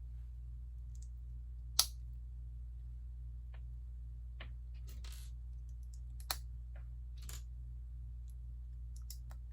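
Plastic Lego pieces being handled and snapped together: scattered sharp clicks, the loudest about two seconds in and again just past six seconds, with a brief rustle around five seconds. A steady low hum runs underneath.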